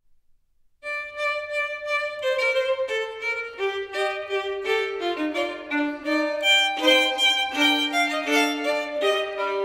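Background music: a violin playing a melody of sustained notes, starting about a second in.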